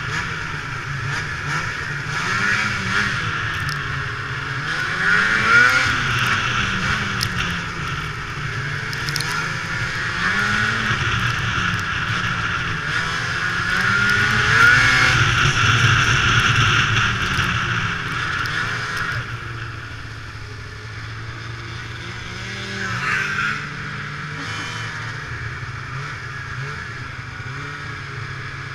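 Ski-Doo MX Z two-stroke snowmobile engine running under way, its pitch rising and falling as the throttle is worked. It settles to a lower, steadier run about two-thirds of the way through, with a steady hiss throughout.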